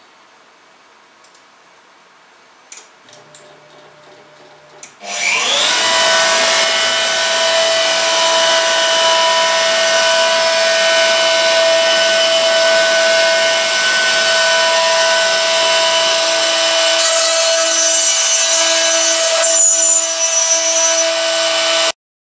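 Spindle of a Pro Vario 30 20 ZK upright CNC router starting about five seconds in with a short rising whine, then running steadily while drilling holding holes into a wooden panel, and cutting off suddenly near the end.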